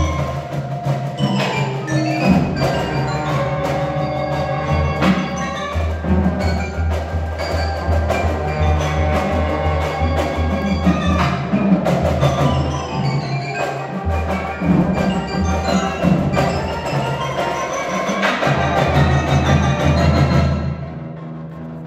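Live school band playing: marimbas and other mallet percussion strike quick pitched notes over sustained low brass notes from a sousaphone, with trumpets joining in. The music drops away near the end.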